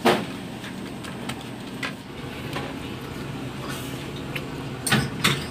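Steady background room noise with a sharp click at the start and a few fainter clicks and taps later on.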